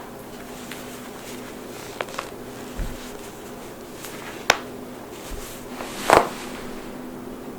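Human joints cracking: a few sharp pops, two faint ones about two seconds in, a loud single pop past the middle, and the loudest, a crunchy double pop, about six seconds in.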